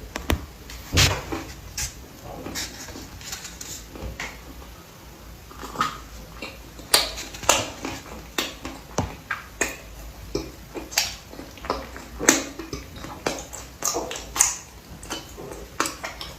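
Close-miked eating: chewing with irregular sharp crunches and wet mouth clicks, about one or two a second, coming more often in the second half.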